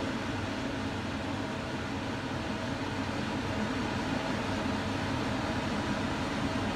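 Steady mechanical hum with an even rushing noise, from a running machine such as a fan or appliance.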